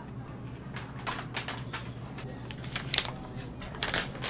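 Paper of a manila envelope rustling and crinkling as it is handled: a series of short, crisp crinkles from about a second in, loudest about three seconds in.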